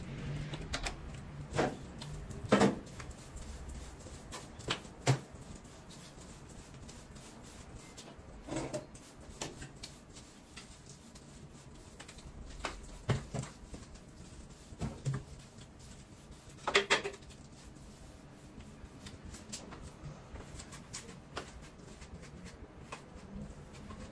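Sweeping a tiled kitchen floor with a broom: scattered knocks and clatter of the broom and a chair being moved, with a few louder knocks spread through.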